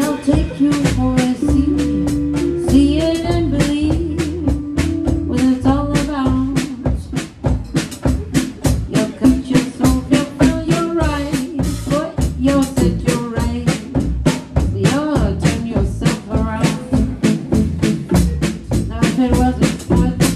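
Live band playing close to the drum kit: a steady drum and cymbal beat over low bass notes, with a wavering melody line above.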